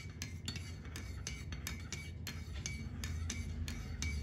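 A metal teaspoon stirring coffee in a ceramic mug, clinking against the sides about three times a second, over a low steady hum.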